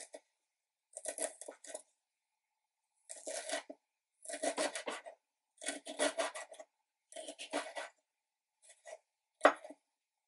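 Chef's knife mincing garlic on a wooden cutting board: short runs of quick knife strokes against the board with silent pauses between them, and one louder single knock near the end.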